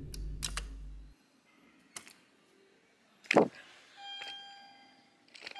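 Elevator arrival chime dinging twice, each a steady, bell-like electronic tone that fades out, about a second and a half apart. Before it, a low hum stops about a second in, and a few clicks are followed by a sharp knock, the loudest sound.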